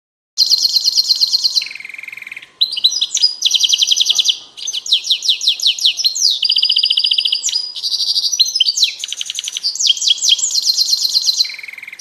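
A small finch singing: fast, high trills made of one note repeated many times, each run lasting about a second before the bird switches to a different note.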